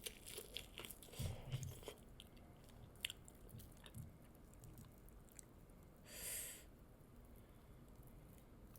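Faint, close-miked chewing and mouth clicks of someone eating fried chicken drumsticks, with a short hiss about six seconds in.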